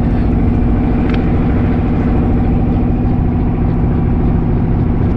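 Houseboat's inboard engine running steadily at an even speed as the boat cruises, a constant loud drone.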